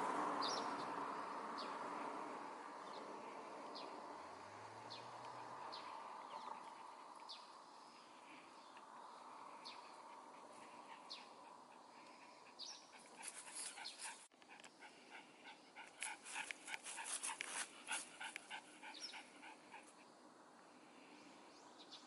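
Eurasian tree sparrows chirping: short, scattered high chirps, with a busier run of quick chirps about midway. A rushing background noise fades away over the first few seconds.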